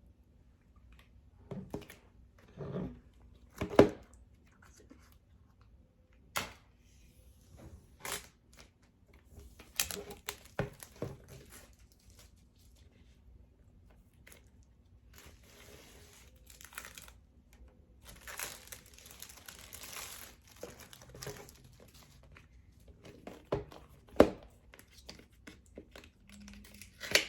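Hands handling an Apple Watch Series 6 cardboard box and its wrapping: scattered taps and knocks on the box, with stretches of crinkling and tearing of the wrap, the longest in the middle.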